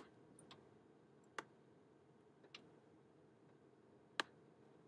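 Faint, irregular clicks of a computer mouse button, about five of them with the loudest near the end, over near silence while letters are drawn with the mouse.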